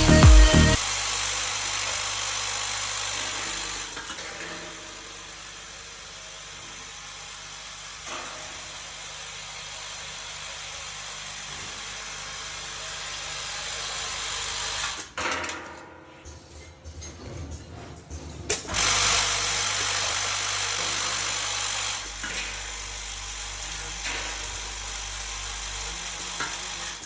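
Bolt packaging machine running with a steady whirring hiss over a low hum. It drops away for a few seconds past the middle, leaving scattered clicks, then runs steadily again.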